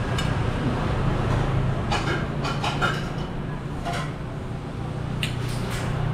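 Cutlery clinking on plates a few times, about two seconds in and again around four and five seconds, over a steady low background hum.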